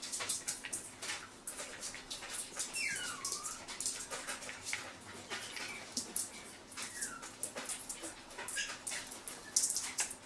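Chihuahua puppy whimpering with a couple of short high whines that fall in pitch, over quick wet clicks and smacks of licking and nibbling at a hand.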